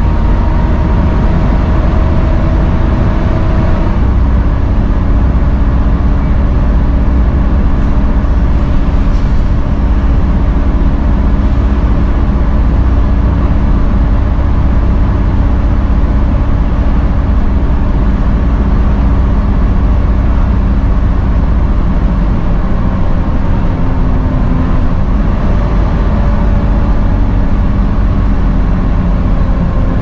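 Volvo B7TL double-decker bus on the move, heard from the upper deck: a steady engine drone with a loud vacuum-cleaner-like whine, the 'hoover' sound. Its pitch shifts a few seconds in and again about two-thirds of the way through.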